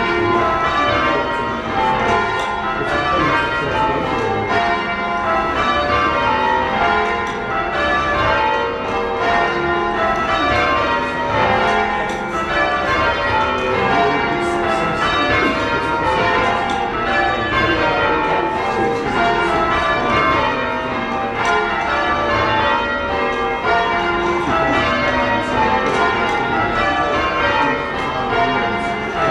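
Church bells being change-rung by a band pulling ropes: a continuous, evenly paced stream of bell strikes, each round stepping down in pitch from the lightest bell to the heaviest.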